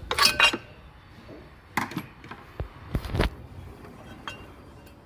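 Metal hand tools and loose metal parts clinking and knocking. There is a cluster of clinks at the start, another about two seconds in, and a heavier dull knock about three seconds in.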